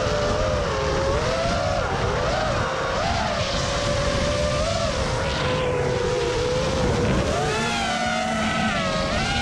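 Five-inch FPV racing quadcopter's brushless motors (DRP New Yorker) and Gemfan Hulkie props whining, the pitch rising and falling as the throttle changes through the flight, over wind rushing on the onboard camera's microphone.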